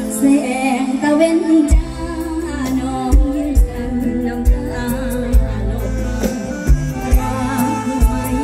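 Live mor lam band music played loud through a stage PA, with a singer's wavering melody over a heavy kick drum and a sustained bass.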